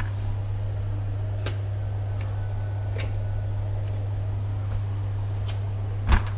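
Scotch-Brite flat sweeper mop being handled: a few short plastic clicks as the cleaning sheet is pressed onto the mop head, and a louder knock about six seconds in as the head meets the tiles, over a steady low hum.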